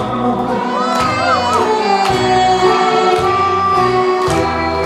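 A man singing a Korean trot song live into a handheld microphone, over an amplified backing track with a steady beat.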